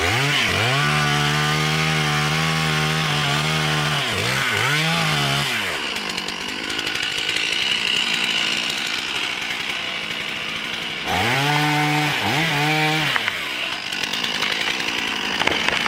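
Two-stroke chainsaw run up to high, steady revs for several seconds, then throttled off and blipped. It drops to a lower hiss and rises again in a second burst of revving about eleven seconds in.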